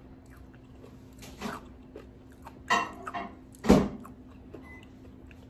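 Someone eating crunchy toast and crispy bacon: a few short crunches and mouth noises from biting and chewing, the loudest a little before the end, over a faint steady hum.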